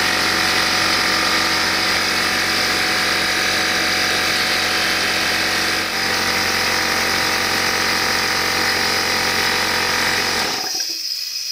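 Oil-free Craftsman pancake air compressor's motor and pump running steadily, filling the tank and building pressure on a test run after a leak repair. It cuts off abruptly near the end, leaving a faint hiss.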